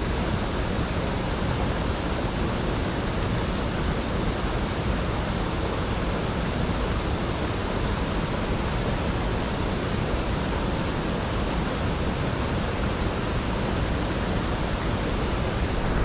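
Steady rushing of water in a small stream: one even, unbroken noise.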